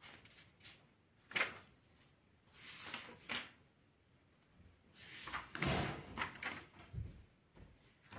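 Paper handling: short rustles and a sharp flick as a textbook page is turned and papers are shifted, the longest rustle about five seconds in.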